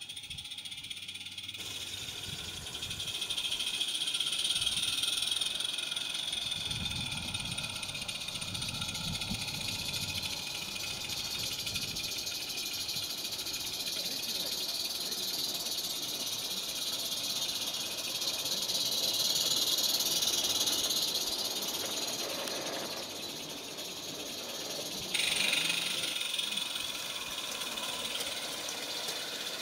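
Garden-scale model train running along the track: a steady high hiss and whirr, with a low rumble of the wheels on the rails partway through.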